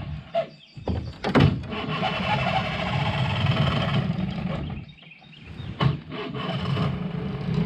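Mercury outboard motor being started: the engine runs, drops out briefly twice, and picks up again.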